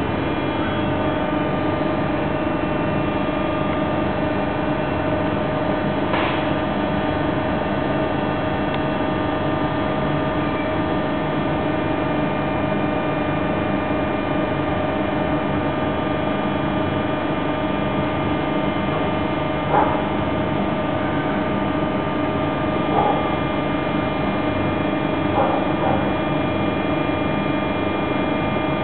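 Steady electrical hum with several constant tones inside a stationary TER 200 passenger coach, from the train's onboard equipment, with a few faint knocks scattered through it.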